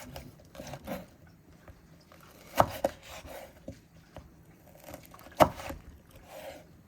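A kitchen knife cutting ingredients on a cutting board: a few separate sharp knocks at uneven intervals, the loudest about two and a half and five and a half seconds in.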